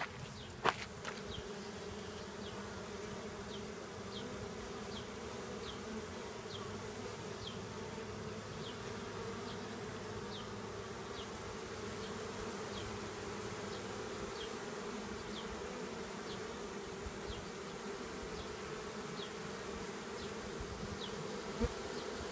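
A mass of honeybees buzzing in a steady, dense hum as they fan at the entrance of a new hive, calling the rest of the colony in to where the queen is. Short high chirps sound about once a second over the hum, and there is a sharp tap less than a second in.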